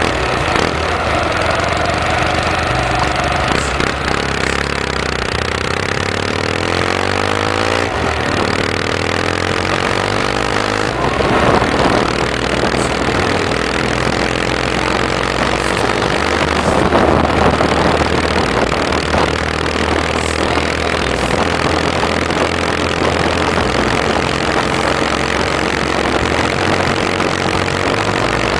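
Norton Commando Mk.III Interstate's 850cc parallel-twin engine pulling along on the road, its pitch rising and dropping several times as it revs up and changes gear, under a steady rush of wind and road noise.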